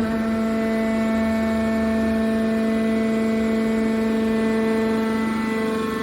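Hydraulic scrap metal baler's power unit running, a steady machine hum with several constant tones.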